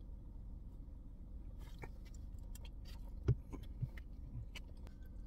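Quiet eating sounds: scattered small clicks and soft knocks of a plastic fork and a paper takeout box being handled, with a soft knock about three seconds in, over a low steady rumble inside a car.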